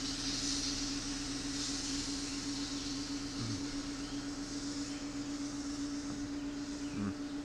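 Wood lathe running with a steady motor hum, over a continuous high hiss of work on the spinning wood that stops near the end.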